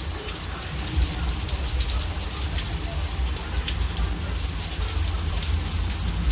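Steady rain falling and pattering on surfaces, with gusts of wind buffeting the microphone as a fluctuating low rumble.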